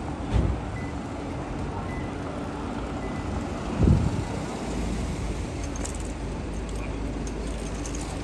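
City street traffic noise: a steady hum of cars on the road, with two brief low thumps, one about half a second in and one about four seconds in.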